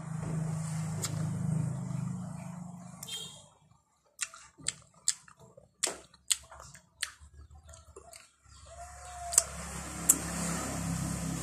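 Mouth sounds of eating juicy santol fruit: a run of sharp, wet lip-smacking and chewing clicks in the middle, with two more near the end. A low steady hum lies under the start and the end.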